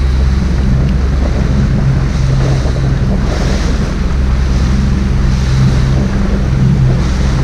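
Small boat's engine running steadily under way, a constant low hum, with wind rushing over the microphone and water washing along the hull.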